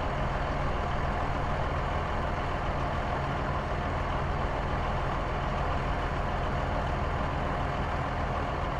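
Car engine running steadily at an even pitch, a sound effect for a compact car.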